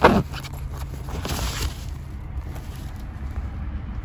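The zipper of a fabric IKEA SKUBB storage organizer being pulled open, loudest right at the start, followed by quieter rustling and scraping of the fabric as it is opened.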